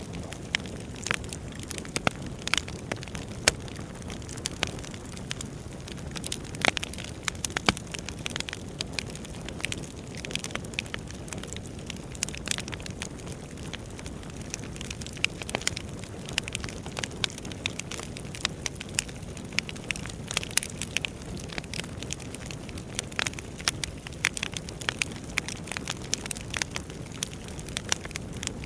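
Burning firewood crackling: frequent irregular sharp pops and snaps over a steady low rush of flames.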